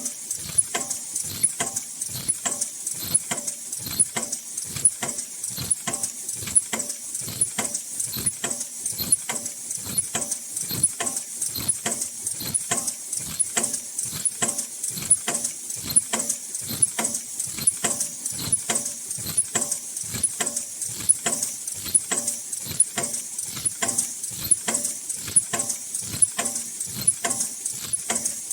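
High-speed automatic N95/FFP2 mask production line running, with rapid, regular clacking of its mechanism a few strokes a second over a steady high hiss.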